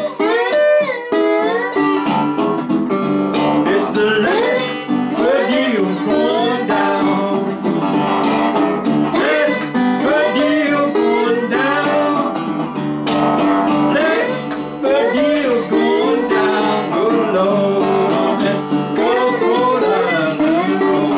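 Chrome-plated bell-brass Beltona tri-cone resonator guitar, tuned to open G, played bottleneck blues-style with a slide. Gliding, bending slide notes sound over steady picked bass notes.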